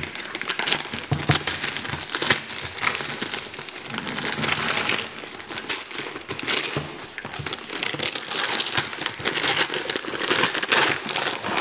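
Gift-wrapping paper crinkling and tearing as hands rip it off a present: a dense, uneven stream of paper crackles and rips.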